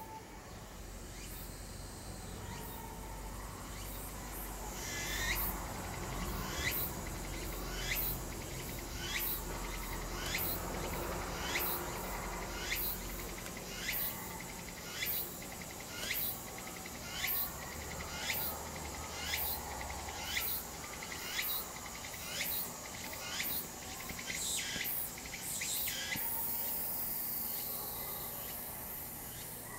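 A cicada calling: a long run of evenly spaced high notes, each falling in pitch, about one and a half a second, that ends in a steady buzz near the end.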